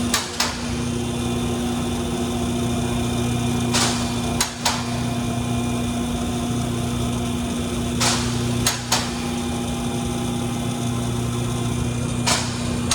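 Vehicle lift raising the car: a steady electric pump hum, with a short hiss followed by two sharp clacks from the safety latches repeating about every four seconds.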